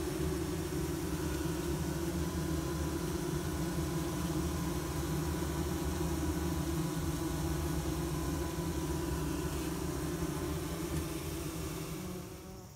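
Honeybee colony humming steadily inside a Layens hive. The beekeeper says the hum has picked up since the feeder was filled and guesses that the smell of the sugar syrup is exciting the bees. The hum eases a little near the end.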